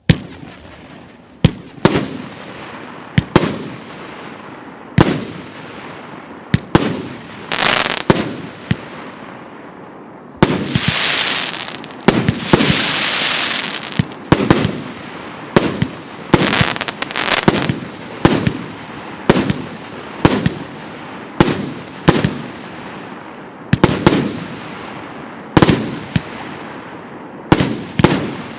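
A 36-shot 1.2-inch firework cake battery firing: sharp shell reports about one a second, each trailing off in a fading hiss, with a longer dense spell of continuous noise about ten seconds in.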